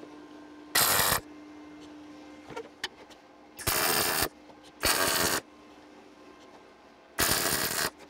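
MIG welder tack-welding a cut-off clamp onto a steel bolt: four short bursts of arc crackle, each about half a second long, with pauses in between.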